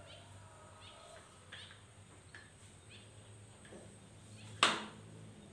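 Faint, repeated bird chirps, with one sharp knock about four and a half seconds in, the loudest sound here.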